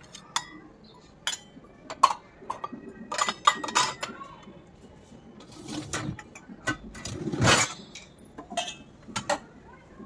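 Stainless steel bowls, plates and utensils clinking and knocking against each other and against the wire racks of an IFB dishwasher as it is loaded. Scattered sharp clinks throughout, with a longer, louder clatter about seven and a half seconds in.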